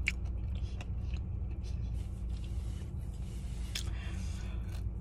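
Faint chewing with small mouth clicks and ticks, over a steady low hum inside a parked car.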